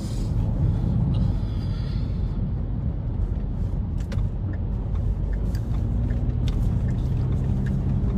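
Steady low rumble of a car cabin, engine and road noise picked up by a phone's microphone, with a few faint clicks in the second half.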